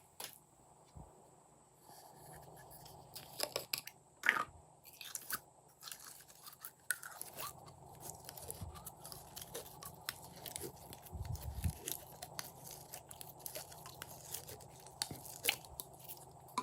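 Glossy slime being squished, stretched and mixed by hand, making irregular clicks and crackles; the loudest come a few seconds in.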